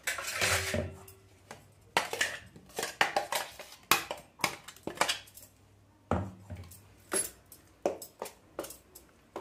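Irregular clinks, knocks and scrapes of steel on steel: a stainless-steel mixer-grinder jar is tapped and scraped against a steel plate as ground tomato paste is emptied out. Near the end, a spoon scrapes the plate as the paste is mixed in.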